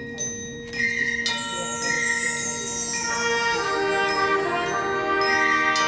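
Marching band and its front-ensemble percussion playing. It opens with a few ringing bell and mallet notes. About a second in comes a shimmering high sweep, and sustained tones then build into a full held chord.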